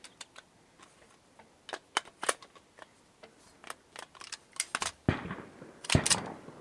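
Scattered sharp metallic clicks and clacks of an AR-15 with a .22 LR upper being handled at a shooting bench, with louder knocks about five and six seconds in.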